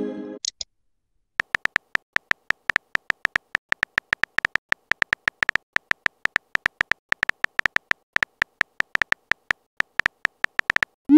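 Keyboard typing sound of a texting-story app: rapid short electronic clicks, about six or seven a second and slightly uneven, as a message is typed out letter by letter. They begin about a second and a half in, after a short chime at the very start fades out.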